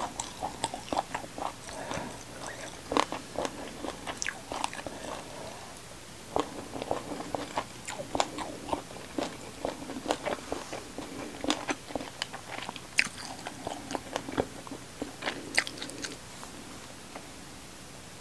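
Close-miked chewing and crunching of a meal of fried pomfret with raw herbs, many short crisp crackles in quick succession that thin out near the end.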